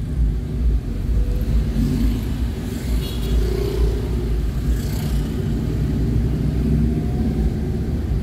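Road traffic heard from a moving vehicle: a steady low engine and road rumble, with cars and motorcycles close around, and brief louder whooshes about three and five seconds in.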